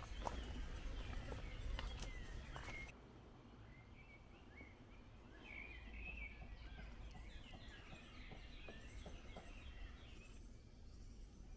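Outdoor ambience: a few sharp knocks and steps for the first three seconds, then, after an abrupt change in the background, small birds chirping repeatedly over a low rumble.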